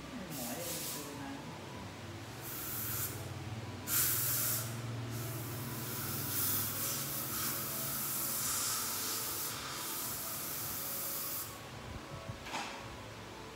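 Dental chair unit hissing: several short blasts, then one long stretch of about six seconds and a brief last puff, with a low motor hum beneath the long part. This is the air or suction equipment in use during root canal work.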